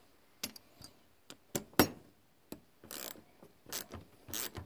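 Quarter-inch drive ratchet clicking in short, irregular strokes as a loose part on a Tecumseh 8 hp engine's carburetor is tightened: single clicks at first, then short runs of clicks.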